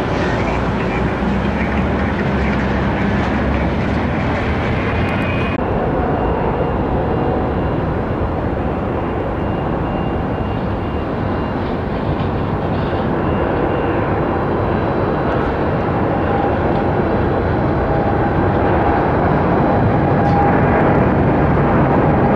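Jet airliner engine noise, a steady loud rush. About six seconds in it cuts to a Boeing 787-9's engines at take-off power, which grow louder toward the end with a faint whine.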